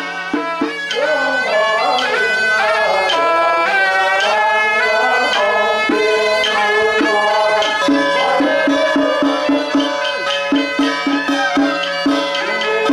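Traditional temple music: a piercing, sliding melody over a steady drone, with quick beats of a small drum at the start and again near the end.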